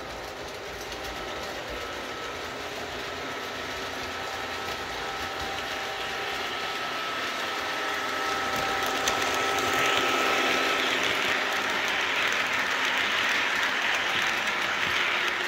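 Lionel O-gauge LionChief Plus CB&Q diesel and its flatcars running on three-rail track: wheels rumbling over the rails with a faint steady hum, growing louder as the train comes up and passes close by about ten seconds in.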